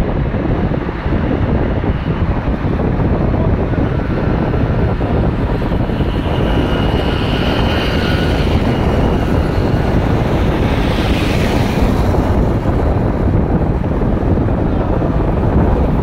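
Steady rumble of wind and road noise from a moving vehicle, the wind buffeting the microphone.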